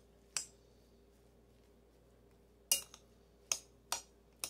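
Metal spoon clinking against a mixing bowl while stirring rice: one clink near the start, a quiet stretch, then four spaced clinks in the last two seconds.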